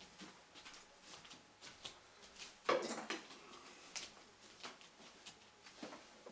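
Faint scattered clicks and light knocks, with one louder knock a little under three seconds in.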